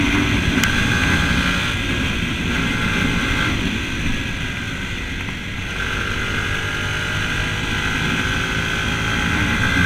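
Yamaha WR 125 X single-cylinder engine running steadily under way, with wind noise over the on-board microphone. The engine eases off slightly about halfway and then slowly picks up again.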